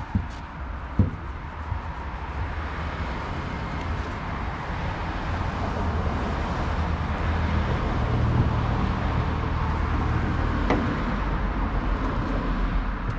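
Road traffic: cars passing on the street, a low rumble that builds and is loudest past the middle. A sharp knock sounds about a second in.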